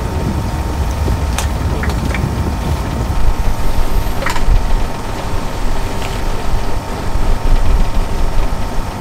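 Steady low rumble of an icebreaker sightseeing ship under way, breaking through drift ice, with a few short sharp sounds.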